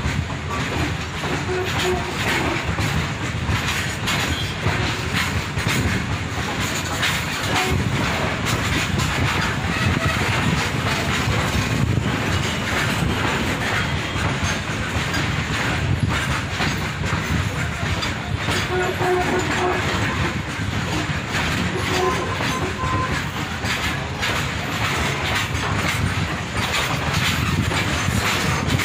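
Freight train of covered goods wagons rolling past at close range: a steady rumble with the clickety-clack of wheels running over rail joints.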